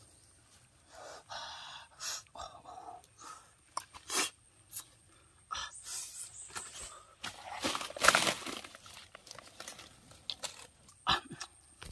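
Dry twigs and leaves crackling, snapping and rustling as sticks are shifted around a small wood campfire, in scattered sharp snaps with a longer, louder rustle about eight seconds in.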